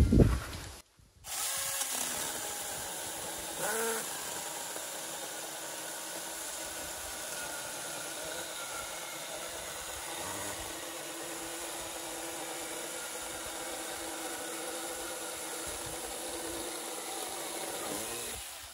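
NaTiddy 21-volt, 6-inch brushless cordless mini chainsaw running steadily as its chain cuts down through a pressure-treated 4x4 post. It starts about a second in and stops just before the end.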